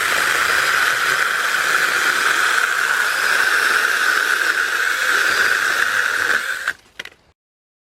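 Sainlogic 6-inch battery-powered mini chainsaw running at full speed and cutting through a dead log: a steady high whine with the hiss of the chain in the wood. It stops suddenly near the end.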